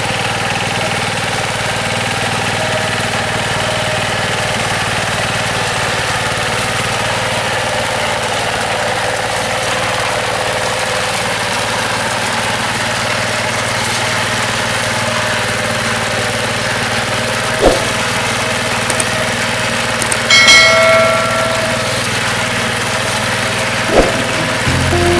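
A Yanmar TF105 single-cylinder diesel engine on a two-wheel rotary hand tractor runs steadily. Late on come two sharp knocks, with a brief ringing tone between them.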